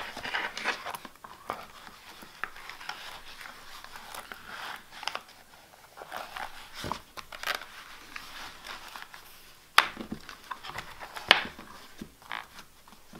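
Rustling and sliding of a leather notebook cover and its paper inserts being handled and fitted, with scattered sharp taps, the two loudest about ten and eleven seconds in.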